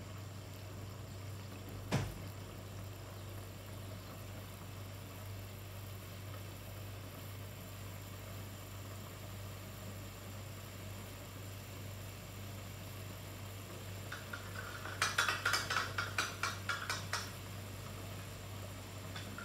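White cheese sauce heating in a nonstick frying pan over a gas flame, under a steady low hum. A single click about two seconds in, then from about fourteen seconds in a few seconds of quick popping as the sauce starts to bubble.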